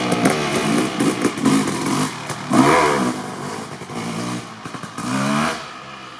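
2003 Kawasaki KX250 single-cylinder two-stroke dirt bike engine, breathing through an FMF Gnarly expansion chamber, revving up and down in repeated throttle bursts while being ridden. The loudest rev comes about two and a half seconds in, a last one about five seconds in, then the sound falls away.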